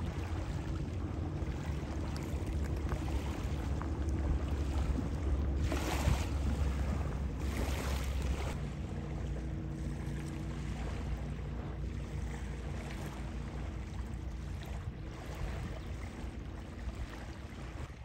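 Wind buffeting the microphone, a strong low rumble over a steady rushing hiss, with gusts swelling about six and eight seconds in. A steady low hum runs beneath it.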